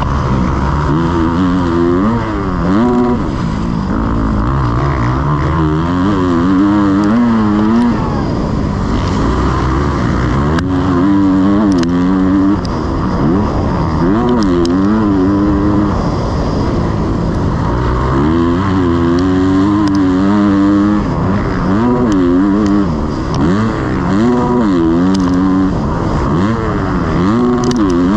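Motocross bike engine revving hard and easing off over and over, its pitch climbing and dropping every second or two.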